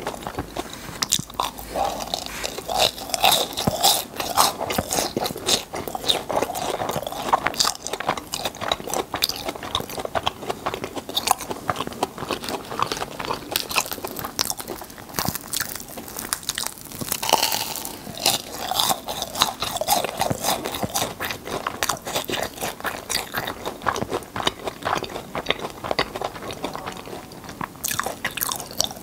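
Crunching and chewing of fried churros, picked up close by a clip-on microphone: the crisp crust crackles in a dense, steady run of small cracks with each bite and chew.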